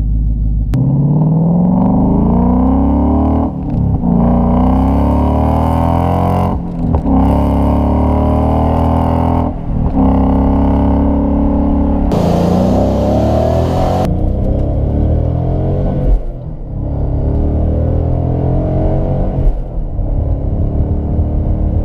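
2015 Ford Mustang GT's 5.0-litre V8 accelerating hard, its pitch climbing and then dropping several times as it shifts up through the gears.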